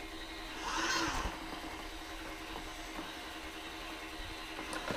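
Bissell SmartClean robot vacuum running with a steady motor hum as it drives back to find its charging dock after being knocked off it; the hum swells briefly about a second in and stops near the end.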